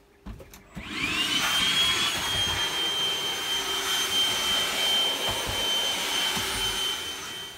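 Cordless handheld vacuum switched on about a second in, its motor whine rising quickly to a steady high pitch, running steadily, then winding down near the end.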